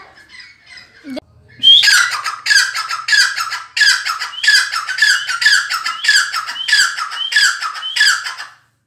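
Grey francolin calling loudly: a fast run of repeated shrill, harsh phrases, about two a second, starting a little under two seconds in and going on for about seven seconds.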